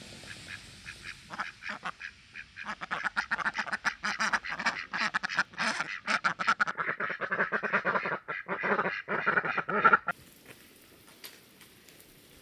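A flock of domestic ducks quacking, many quacks in quick succession, that cuts off abruptly about ten seconds in.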